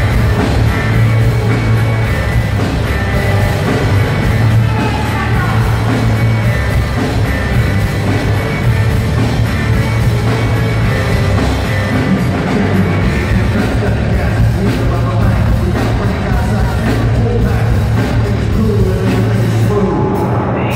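Live rock band playing loud through a PA: electric guitar, keyboards, bass and drums with a singer, heard from within the crowd.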